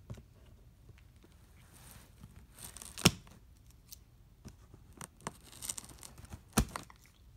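Cardboard box being cut open with scissors: scraping and tearing of tape and cardboard in two spells, each ending in a sharp click, one about three seconds in and one near the end.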